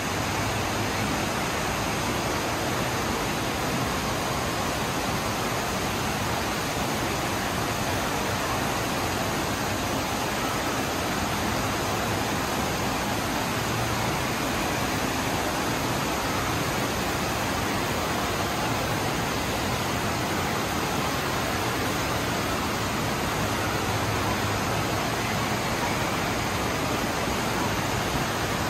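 Steady rush of water from a FlowRider sheet-wave machine, water pumped up its slope and churning into foam at the top, unbroken and even throughout.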